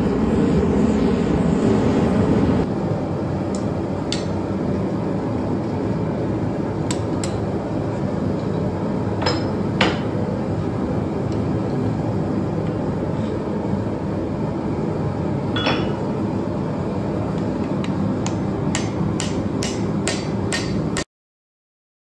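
Hammer blows on red-hot coil spring steel at the anvil, a few spaced strikes and then a quick run of them near the end, over the steady rushing noise of a propane forge burner, which is loudest for the first couple of seconds. The sound cuts off abruptly just before the end.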